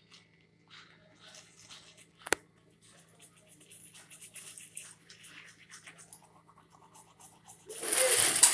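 Faint scratching and rustling with a single sharp click a little over two seconds in, then a loud rustling and handling burst near the end.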